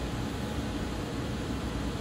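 Steady fan-like whooshing noise with a low hum underneath, as from cooling fans or ventilation running.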